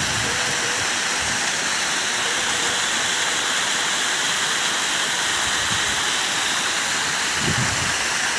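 Mountain waterfall pouring down a rocky cliff face: a steady rush of falling water.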